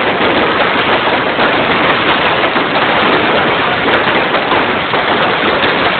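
Fireworks crackling in a loud, dense, continuous rattle of small rapid bangs, like heavy rain, with no pauses.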